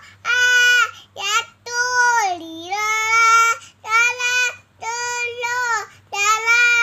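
A small boy singing sholawat unaccompanied in a high child's voice, in short held phrases with brief breaths between them. A faint low hum sits underneath.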